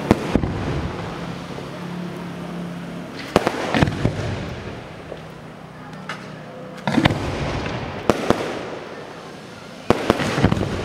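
Aerial fireworks display bursting overhead: sharp bangs in bunches every few seconds, with a steady noisy wash between the volleys.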